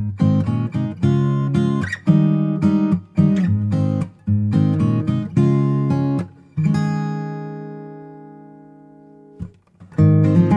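Background music on acoustic guitar: rhythmic plucked and strummed chords, with a held chord left ringing and fading away for about three seconds before the playing starts again.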